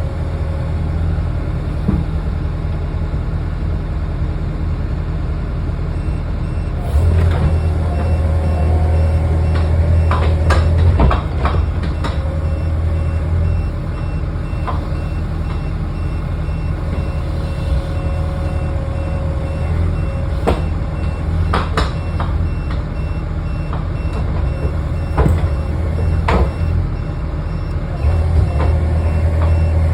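Bobcat E45 mini excavator's diesel engine running with the hydraulics working. The engine load rises for a few seconds at a time under a steady whine, and several sharp metal clunks come from the grapple and coupler through the middle.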